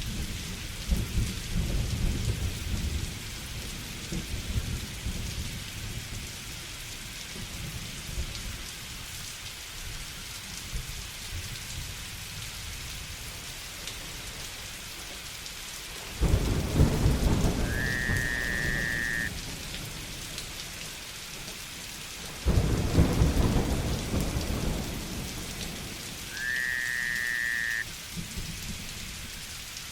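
Steady heavy rain with thunder: a rumble dying away over the first few seconds, then two sudden low thunder rumbles past the middle, each fading over several seconds. Twice a short, high, whistle-like call, about a second and a half long, sounds over the rain.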